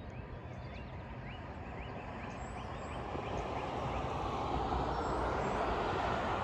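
A car passing on a road, its engine and tyre noise growing steadily louder through the second half. A bird's short rising chirps repeat in the first three seconds.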